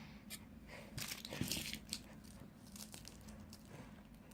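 Thin foil wrapper of a chocolate egg crinkling faintly as it is peeled and handled, with a cluster of louder crinkles about a second in.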